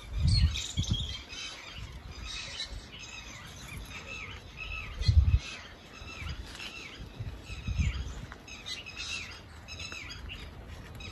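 Small birds chirping over and over in short arching calls, with a few low dull thumps, the loudest about five seconds in.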